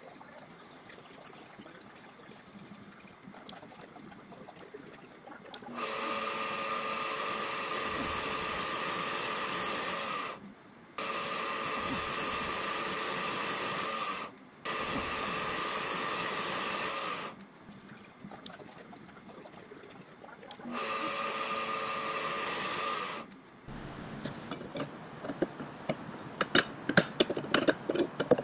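Milling machine spindle turning a boring head as it cuts a bored hole in a metal plate: a steady whine with several even tones, in four stretches that start and stop abruptly. Near the end, a run of sharp clicks and scraping.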